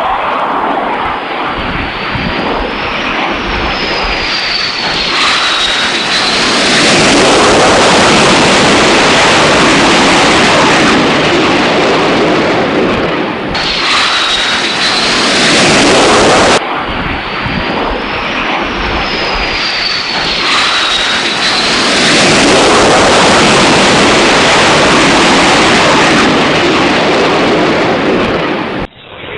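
Dubbed-in sound effect of a jet aircraft flying: loud, steady jet engine noise with a high whine that glides down and back up. It starts and cuts off abruptly, and the same stretch of recording repeats about halfway through.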